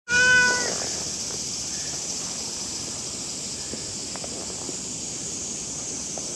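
Steady high-pitched drone of a summer cicada chorus. A short pitched sound at the very start is the loudest moment, and faint scattered ticks are heard throughout.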